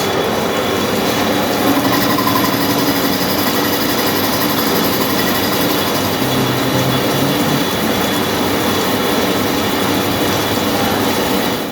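Steady, loud machine-shop noise from CNC turning machines running, an even din with a few faint steady tones in it.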